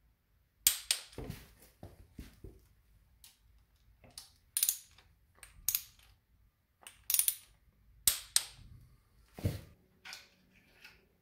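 A ratchet wrench clicking and knocking on the bolts of a motorcycle engine's side cover, in separate sharp metallic bursts about once a second, a few with a duller thud underneath.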